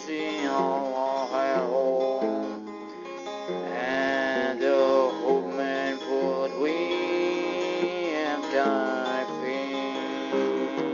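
Music led by acoustic guitar, with a melody line that slides and wavers in pitch over the plucked chords.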